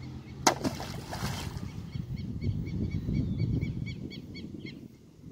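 Plastic fish trap weighted with water splashing into a pond about half a second in, followed by low wind rumble on the microphone.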